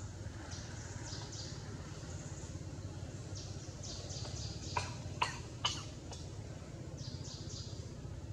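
Outdoor forest ambience: short high chirps in quick groups recur every few seconds over a steady low hum. About five seconds in come three sharp clicks, roughly half a second apart.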